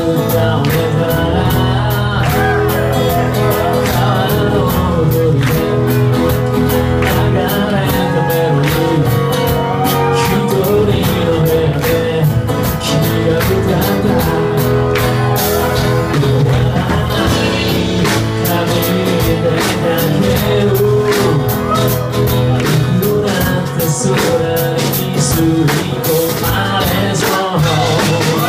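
Live band playing a song on acoustic guitar and drum kit, the drums busy with cymbal and hi-hat strikes, with singing over it.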